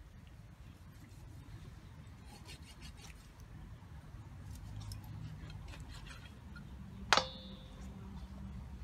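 Cleaver cutting raw chicken on a wooden chopping board: faint small knocks and slicing, then one sharp chop about seven seconds in that rings briefly off the metal blade.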